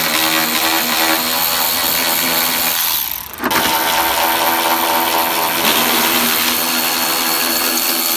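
Milwaukee cordless ratchet running steadily, its motor whining as it spins hood-hinge bolts. It stops briefly about three seconds in, then runs again.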